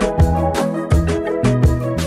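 Instrumental background music with a steady drum beat and a bass line.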